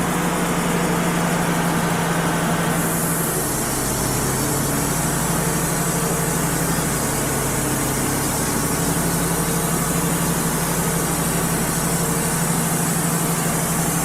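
Wood-Mizer LT35 HD portable sawmill's diesel engine running steadily with a low hum. About three seconds in, a high hiss joins it and holds.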